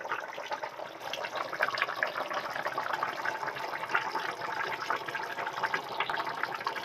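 Katla fish curry boiling hard in a wide kadai: a steady crackle of bubbles rising and popping in the thick gravy.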